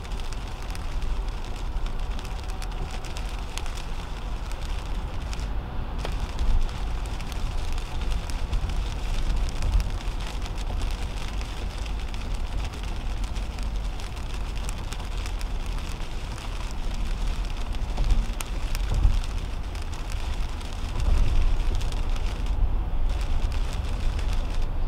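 2010 Toyota Camry driving at highway speed in rain, heard from inside the cabin: steady tyre and road noise on wet pavement with a low rumble, and raindrops ticking on the windshield.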